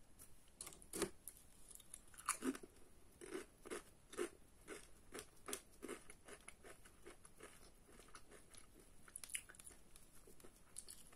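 Soft, crisp crunching clicks right at a microphone, made as an ASMR trigger. They come in a run of about two a second through the middle, then thin out.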